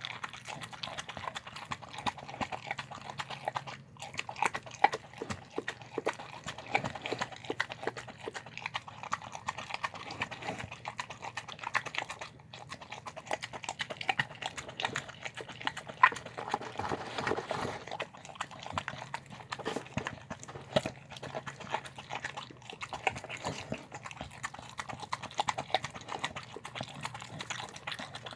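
Dog eating chicken and rice from a bowl: continuous wet chewing, smacking and licking, with many quick irregular clicks.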